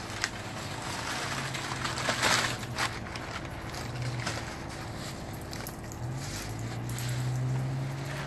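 Bubble wrap and crumpled packing paper crinkling and rustling as they are pulled off a long sword, with scattered crackles and a louder burst of crinkling about two seconds in. A low steady hum runs underneath.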